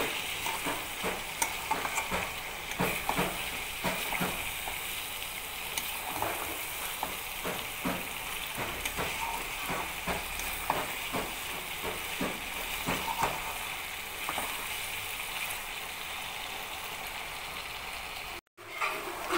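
Chicken pieces in thick curry masala sizzling in a metal pan while a steel spatula stirs and scrapes them against the pan, giving a steady frying hiss with frequent scraping clicks. The scraping thins out toward the end, and the sound cuts out briefly just before the end.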